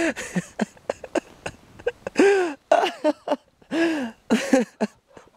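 A person laughing in several short bursts, with quick crunching clicks between them from a dog burrowing through deep powder snow.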